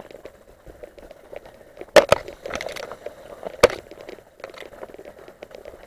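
Tall grass and reed stalks rustling and brushing as people push through them on foot. Sharp clicks cut through the rustle, two in quick succession about two seconds in and one more a second and a half later.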